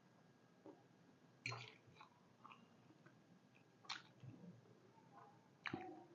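A person chewing food, with faint wet mouth sounds and three sharp crunchy clicks spread through.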